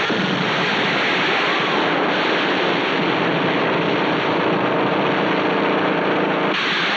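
Film soundtrack of a helicopter in flight: a steady, loud rush of engine and rotor noise, changing in character about two seconds in and again near the end.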